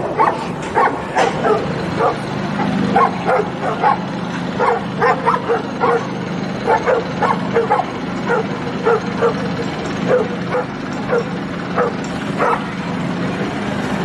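A pack of stray dogs barking and yipping: short, sharp barks coming two or three a second, on and off, over a steady low hum.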